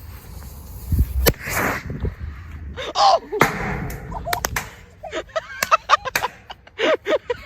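Firework let off: a sharp bang about a second in with a short hiss after it, then a run of further pops and cracks, with excited shouting voices between them.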